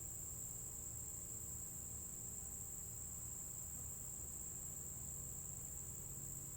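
Steady, high-pitched chorus of crickets, a constant unbroken trill.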